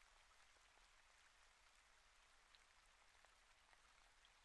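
Near silence: very faint, steady rain in the background, with a few soft drop ticks.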